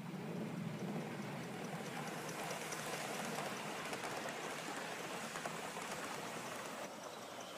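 Live-steam Gauge 1 model NER R1 4-4-0 locomotive running past with its coaches: a steady hissing rush of steam exhaust and wheels on the rails. Faint fast ticking comes in from about two and a half seconds, and the sound eases off near the end.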